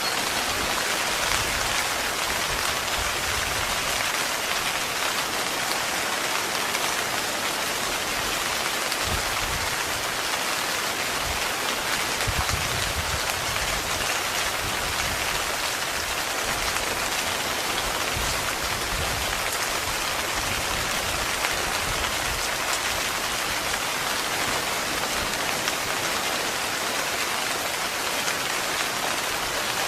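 Heavy rain falling steadily on a tent, a dense, even patter, with faint low rumbles coming and going through the middle.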